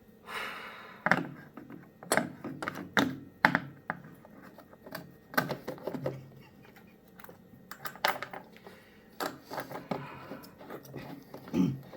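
Irregular knocks, clicks and rustles of parts and tools being handled and set down, with a dozen or so sharp knocks spread unevenly through the stretch.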